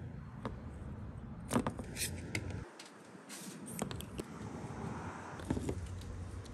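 Scissors snipping and stripping a fuel pump's thin electrical wires on a plastic table: a handful of separate sharp clicks and snips, with one brief hiss near the middle, over a low steady rumble.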